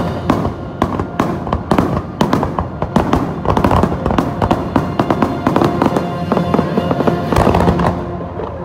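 A dense finale barrage of fireworks, many sharp bursts and cracks each second, over the show's soundtrack music.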